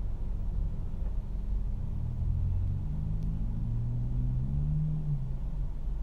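Low, steady rumble of background noise, with a faint hum that rises in pitch between about two and five seconds in.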